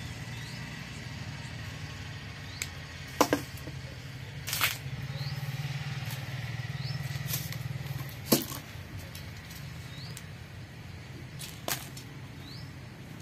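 Hand work with small tools at a bench: a few sharp clicks and knocks, a second or more apart, over a low steady hum, with faint short rising chirps repeating every second or two.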